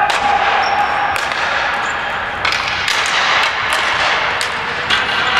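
Ball hockey play: a string of sharp knocks and clacks from sticks striking the ball and each other, over a steady background hiss.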